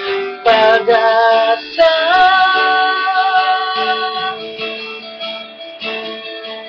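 A man singing a slow Tagalog ballad over a guitar accompaniment, holding one long note for about two seconds; after that the voice stops and the plucked guitar backing carries on alone.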